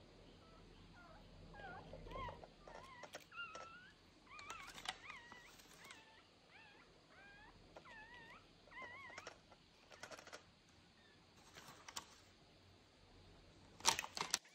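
Young puppy whimpering in a run of short, high squeaks that bend up and down in pitch, then a few sharp clicks and knocks, the loudest near the end.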